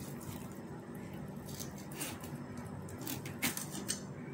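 A table knife cutting through a crisp-edged folded pathiri on a plate: a few soft crunches and sharp clicks as the blade breaks the crust and touches the plate, the loudest about three and a half seconds in.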